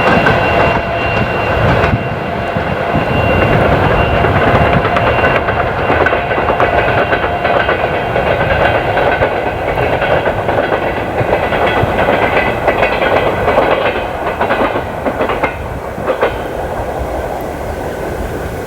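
Passenger coaches of a diesel-hauled train rolling past at low speed, their wheels clicking over the rail joints. The clatter stops about sixteen seconds in, and a quieter, steady rushing sound carries on.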